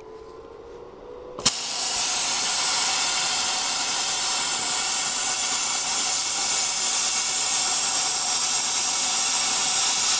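ESAB Cutmaster 70+ plasma torch at 70 amps striking its arc with a sharp snap about a second and a half in. It then hisses loudly and steadily as it pierces and cuts through 20 mm mild steel plate.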